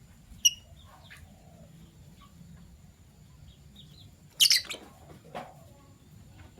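Fischer's lovebirds chirping: a single short, sharp chirp about half a second in, then a louder cluster of shrill calls a little past four seconds, followed by a fainter one.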